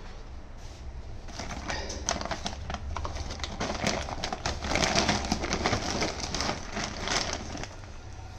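Plastic food packet crinkling and rustling as it is handled, with many small crackling clicks.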